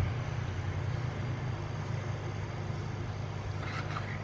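Hot air rework station blower switching on and running with a steady low hum, with a few faint light clicks near the end.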